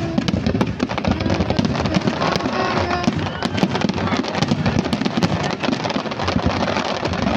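Fireworks cracking and banging in quick succession throughout, over the show's accompanying music.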